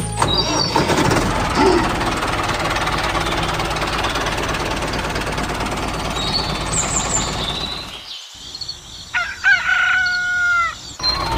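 Steady rattling engine noise for about eight seconds, with a few high bird chirps partway through. Near the end the engine stops and a rooster crows.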